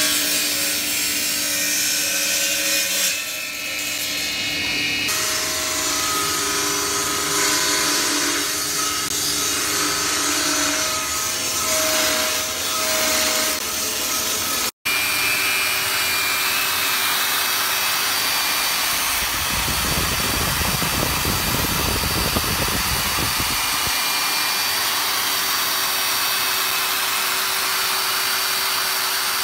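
A table saw runs and rips a narrow wooden strip, the pitch of the blade shifting as the wood feeds through. Halfway through, after a brief break, a steady machine noise takes over, with a deeper rumble for a few seconds.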